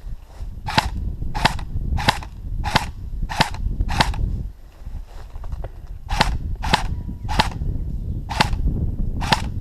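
M4-style airsoft rifle firing single shots in semi-automatic, a sharp crack with each pull: six shots about two-thirds of a second apart, a pause of about two seconds, then five more.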